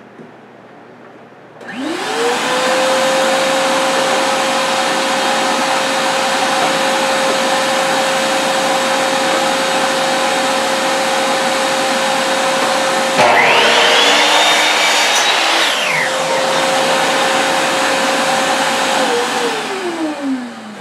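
Shop vacuum switches on and runs steadily. About two-thirds of the way through, a compound miter saw spins up with a rising whine, cuts a 45-degree angle through the wood and brakes to a quick stop. Near the end the vacuum switches off and winds down with a falling tone.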